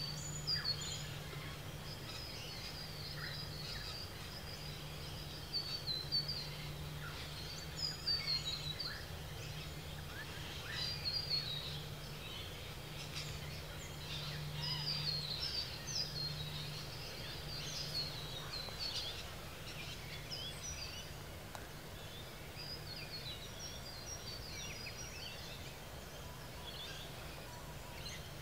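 Outdoor ambience of small birds chirping and twittering in quick, repeated short notes, over a low hum that comes and goes.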